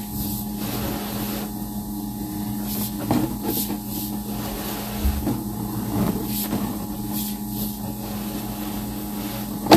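Steady low machine hum with light scattered knocks and scrapes as a sewer inspection camera's push cable is drawn back. A sharp click comes at the very end.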